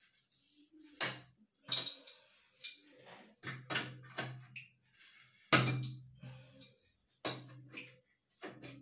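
Metal shower fittings clinking and knocking as they are handled and fitted at the wall water outlet: about ten sharp, irregular knocks, the loudest about halfway through.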